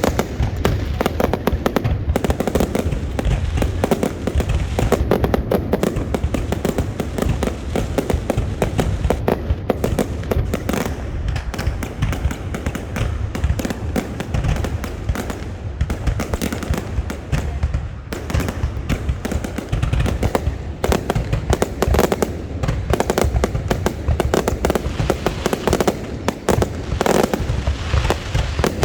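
A fireworks display going off without a break: dense, rapid bangs and crackles over a steady rumble.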